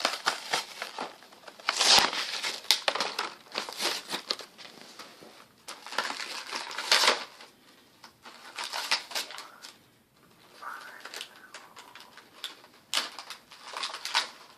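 Plastic blister packaging and cardboard crinkling and crackling as an action figure is worked out of its package, in bursts with short pauses between them.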